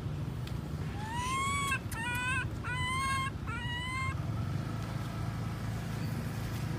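A baby macaque gives four high, whimpering coo calls in quick succession, each rising then falling in pitch, starting about a second in. A steady low rumble runs underneath.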